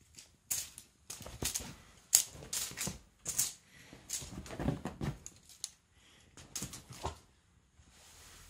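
A cat pouncing and scrabbling at a crinkly wand teaser toy on a cloth-covered sofa: an irregular run of sharp taps, thumps and scuffs, loudest about two seconds in and thinning out near the end.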